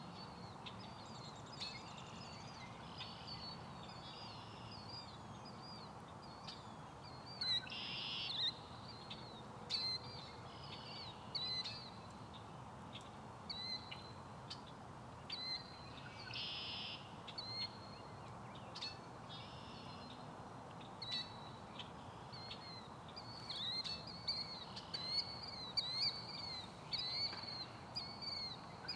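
Killdeer giving many short, shrill calls, mixed with red-winged blackbirds singing, over a steady low background rumble. The calls come in quick runs throughout, with a few louder buzzy calls.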